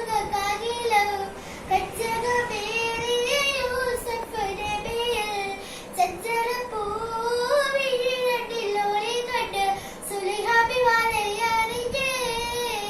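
A child singing a Mappila song (Mappila Pattu) solo and unaccompanied, in a high voice with a winding, ornamented melody.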